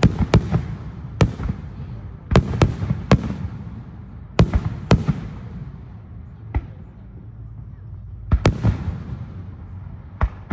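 Aerial fireworks shells bursting: about a dozen sharp booms at uneven intervals, several in quick pairs, each trailing off in a fading rumble, with a lull in the middle.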